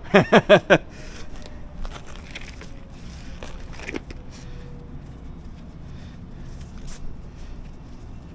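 A man's voice in four quick, loud, evenly spaced bursts in the first second, followed by scattered light knocks, clicks and scrapes.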